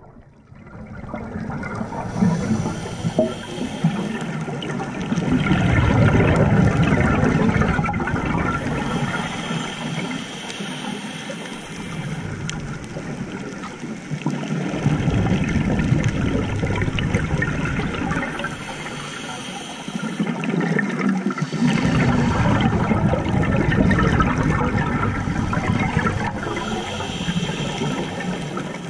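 Scuba diver breathing through a regulator underwater: a loud bubbling rush of exhaled air, coming in swells about every eight seconds, with quieter stretches between them.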